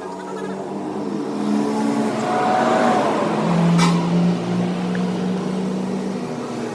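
A motor running with a steady pitched hum that swells in loudness, its pitch stepping down about halfway through, with one sharp click near the loudest point.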